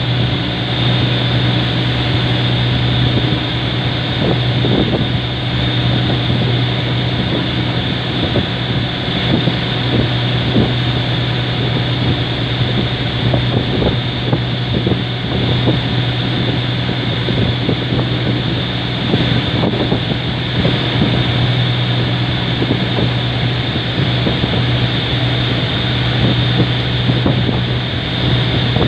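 Boat engine running steadily at cruising speed, a constant low drone, with wind buffeting the microphone and water rushing past the hull, and scattered knocks of waves against the boat.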